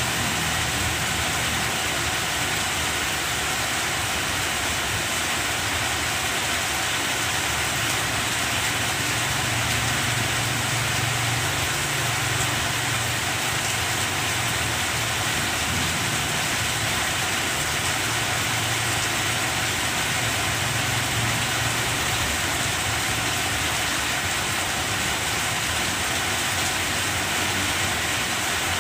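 Heavy rain falling steadily on banana leaves and the surroundings, an even hiss, with a low rumble underneath through the middle stretch.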